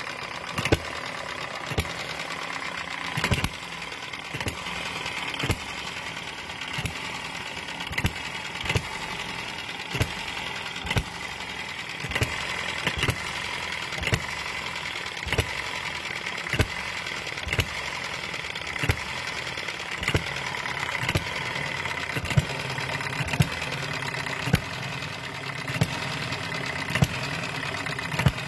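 Eachine ET1 (Microcosm M90) miniature hit-and-miss engine running, firing with a sharp bang about once a second and coasting on its flywheels between firings, with a steady mechanical running noise in between. It is still warming up from cold.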